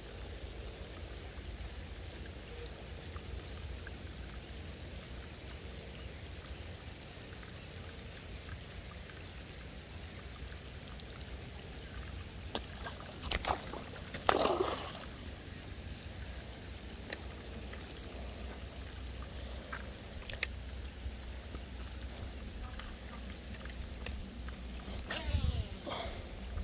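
Steady rain falling on a pond's surface, with a steady low rumble underneath. A few sharp clicks come through, and there is a short louder burst about halfway through and another near the end.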